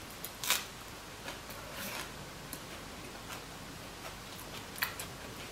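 Close-up eating sounds of a fresh vegan spring roll in a rice-paper wrapper being bitten and chewed: a few short, sharp crunching and wet mouth noises, the loudest about half a second in, over a low quiet background.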